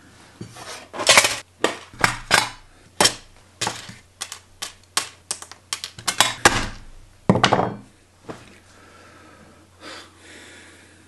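A quick, irregular series of about twenty sharp clicks and knocks of hands and hard objects on a tabletop as LEGO pieces are pressed and handled, with one short scraping slide about seven seconds in.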